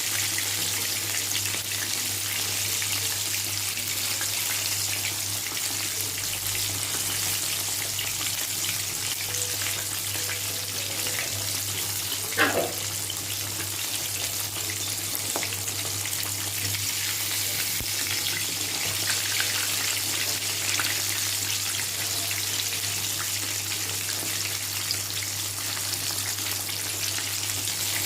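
Flour-coated chicken leg pieces deep-frying in hot oil: a steady sizzle, with one brief sharp sound about twelve seconds in.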